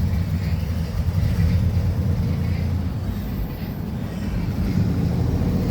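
A truck driving slowly over a rough dirt trail: a steady low rumble of the engine and running gear.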